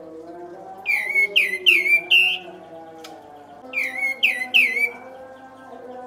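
Olive-winged bulbul (kapas tembak) calling in two quick runs of loud, sharp down-slurred notes: four notes about a second in, then three more a couple of seconds later. Faint wavering low tones sit underneath.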